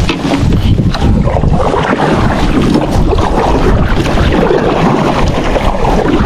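Wind buffeting the microphone, a steady loud rumble.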